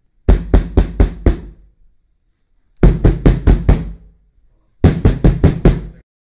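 Knocking on a wooden door: three rounds of about five quick, heavy knocks each, with a pause of about a second between rounds.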